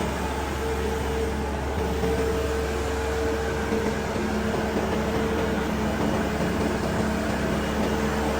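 A machine running steadily, a constant hum on two fixed pitches over a low rumble and even noise.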